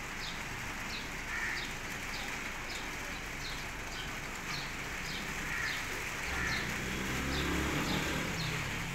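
A small bird chirping over and over, short falling chirps roughly every half second, over a steady outdoor hiss. A low rumble comes in from about six seconds in.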